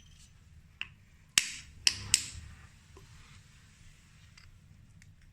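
A small click, then three sharp metallic knocks in quick succession, each with a short ringing tail: hand tools striking metal during a repair.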